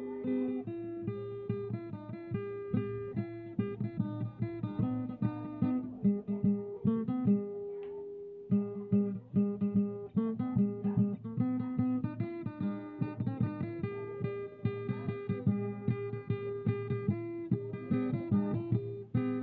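Background music: an acoustic guitar picking a melody in quick plucked notes.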